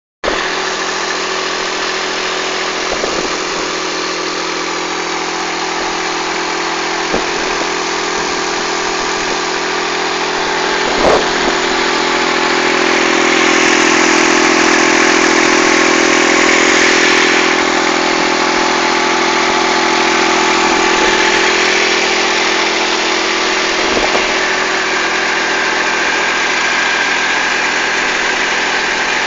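A Mitsubishi Shakti tractor's diesel engine runs steadily while driving a generator through its PTO shaft. It gets louder for a few seconds midway, with a few light knocks here and there.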